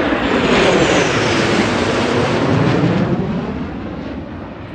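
Jet aircraft flyover: a loud rumble that swells to a peak with a slowly falling pitch, then fades away as it passes.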